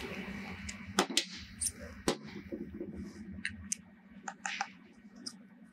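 Scattered sharp metallic clicks and taps as a preset torque wrench works the clamping screw of an ETP hydraulic tool holder, over a low steady hum that fades about halfway through.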